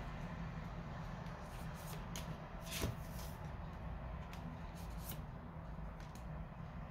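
A tarot deck being handled: cards shuffled and slid off the deck onto a table, a scatter of short flicks and snaps at irregular intervals over a faint low hum.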